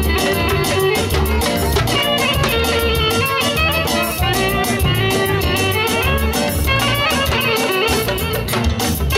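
Loud dance music in the Romanian manele style: a guitar carrying the melody over a steady drum beat.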